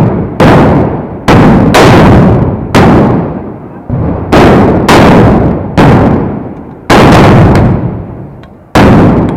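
Black-powder arquebuses (trabucos) firing blank charges one after another: about eleven loud, sharp cracks at irregular intervals, from under half a second to nearly two seconds apart, each echoing off the surrounding buildings and dying away over about a second.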